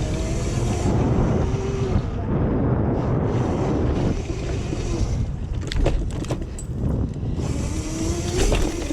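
Razor MX500 electric dirt bike's motor and chain drive whining over a steady rumble of tyres and wind on the microphone. The whine rises as the bike speeds up near the start and again near the end, and a run of rattling knocks from the bike over rough ground comes in the middle.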